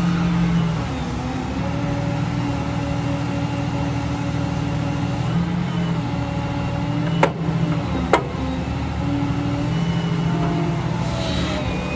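Liebherr R954C HD Litronic crawler excavator's diesel engine running with the whine of its hydraulics as the boom and stick move, the note dropping about a second in and picking up again near the end. Two sharp knocks about a second apart midway through.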